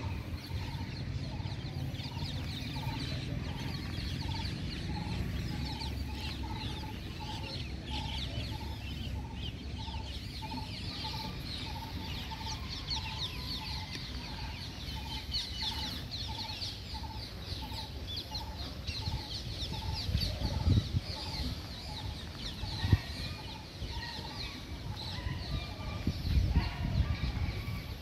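Birds calling: one note repeated about twice a second over a dense chatter of short high chirps that thickens after about ten seconds. A low rumble runs underneath, and a few thumps come near the end.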